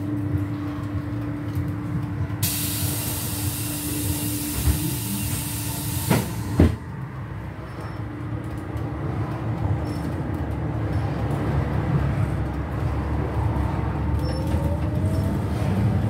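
Inside a trolleybus standing at a stop: a steady hum, then a loud hiss of compressed air lasting about four seconds as the pneumatic doors work, ending in a couple of sharp knocks as the doors shut. The trolleybus then pulls away, and its running and rolling noise builds.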